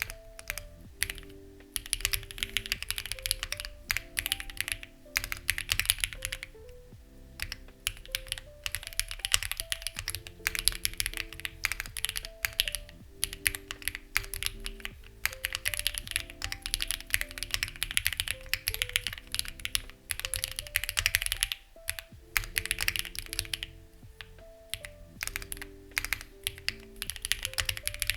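Continuous typing on a Lucky65 v2 mechanical keyboard with stock, unlubed HMX Ziwei switches, stock plate and stabilisers and CMK-clone keycaps: a fast run of key clacks with brief pauses, over soft background music.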